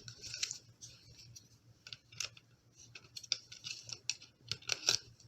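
Irregular small clicks and rattles of a Glock 19 magazine being handled and fitted into a Glock 26 pistol's grip, over a faint steady low hum.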